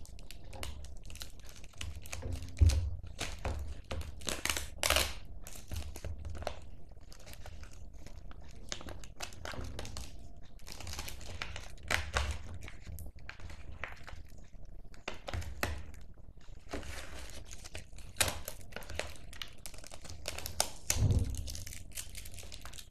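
A small homemade bag being opened by hand: irregular crinkling and tearing, with occasional low thumps.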